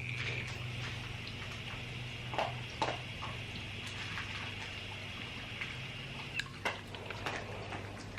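Steady low hum and a hiss, with scattered light clicks and taps; the hiss fades out after about six and a half seconds.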